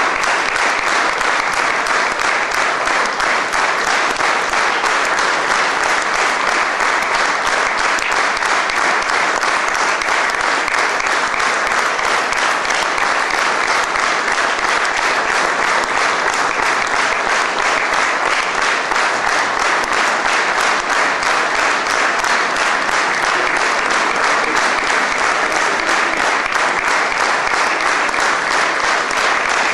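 Theatre audience applauding steadily, a curtain-call ovation for the cast.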